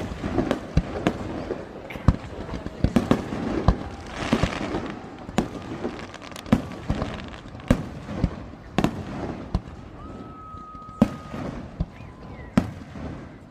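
Aerial fireworks show: an irregular string of sharp bangs, roughly one or two a second, with a short burst of crackling hiss about four seconds in.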